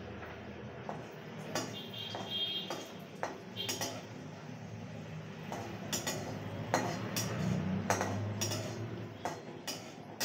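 Metal spatula scraping and tapping against a steel kadai while a paratha is pressed and turned in it: irregular clinks and scrapes.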